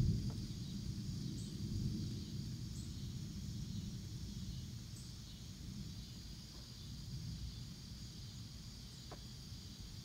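Distant thunder rumbling low, loudest at the start and slowly fading away, over a steady high chorus of insects.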